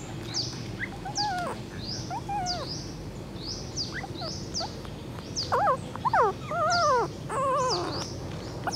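Very young puppy whimpering and whining for its mother, first in a few short cries, then in a run of louder, wavering whines in the second half. Repeated high, quick chirps sound in the background.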